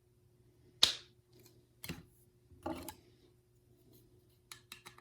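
Hard plastic model airplane parts being handled: a sharp click about a second in, another click and a short rustle, then a quick run of small clicks near the end.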